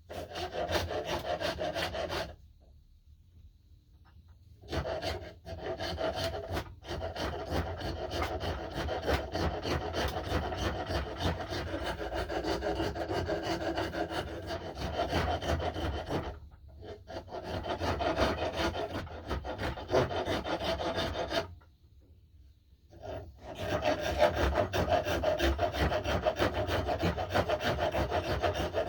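Rapid back-and-forth scraping strokes of a hand tool shaping the wooden knob of an axe handle. The strokes come in four runs, with short pauses about two seconds in, about halfway through, and about three quarters of the way through.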